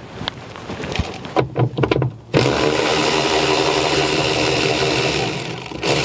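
Cordless power tool spinning out bolts from a minivan sliding door's inner panel: a few short trigger bursts, then a steady motor run of about three and a half seconds that stops just before the end.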